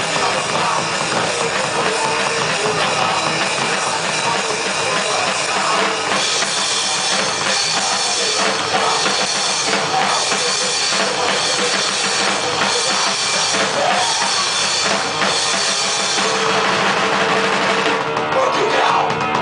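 Heavy metal band playing live in rehearsal: loud, dense music driven by a drum kit with bass drum and snare, the cymbals growing brighter about six seconds in.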